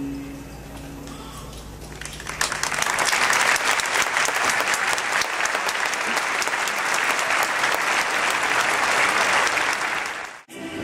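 Audience in the arena stands applauding: the clapping swells in about two seconds in as the accompanying music fades away, holds steady, and cuts off abruptly near the end.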